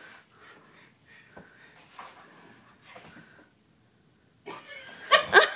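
Faint scuffs and soft knocks from a basenji in a cone collar moving about on a couch. Near the end comes a short loud burst of voice-like sound.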